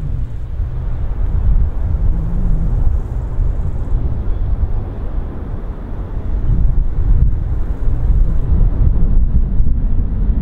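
Jet aircraft engine noise on the runway: a loud, deep rumble with a rushing hiss above it, swelling louder about six seconds in.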